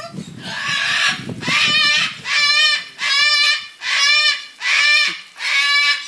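A parrot calling loudly: a run of about six wavering squawks, each about half a second long and evenly spaced. A low rumbling noise runs under the first two calls.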